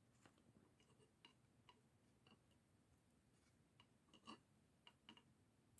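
Near silence with faint, irregular small clicks of hard parts being handled on a workbench, a few slightly louder ones about four seconds in.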